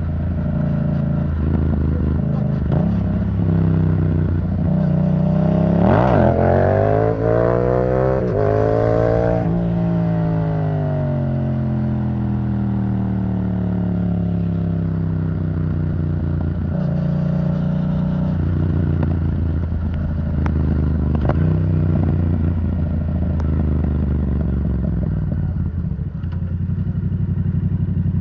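Yamaha MT-07 parallel-twin engine through an Arrow Thunder titanium exhaust, riding along: the revs climb steadily for about five seconds under acceleration, then fall away slowly as the throttle is rolled off, and settle to a steady cruise.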